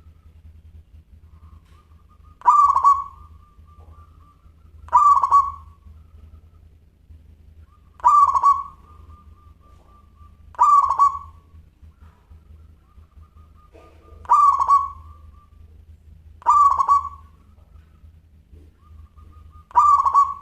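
Zebra dove (perkutut) cooing, seven separate rolling coos, each about a second long and spaced two and a half to three and a half seconds apart.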